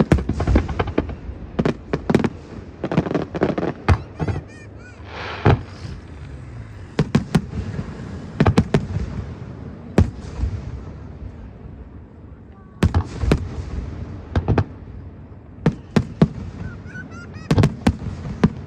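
Fireworks display: clusters of sharp bangs and crackling bursts, with short whistling sounds about four seconds in and again near the end.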